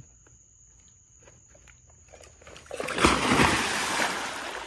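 A person's body dropping from a wheelchair into a swimming pool: a heavy splash about three seconds in, then water sloshing as it settles. A few faint clicks come before the splash.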